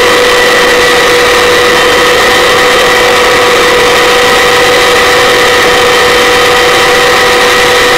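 Helicopter in steady flight: the turbine and gearbox whine as a set of steady high tones over an even rushing rotor and airflow noise.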